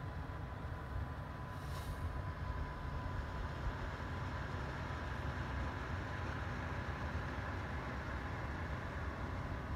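Steady low rumble and whir with a faint steady high tone, from an electric fireplace's heater fan running; there is no crackle of burning wood. A brief soft hiss comes about two seconds in.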